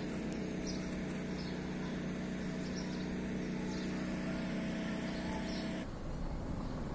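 A steady low mechanical hum, like a motor running, that cuts off suddenly about six seconds in, leaving only outdoor background noise.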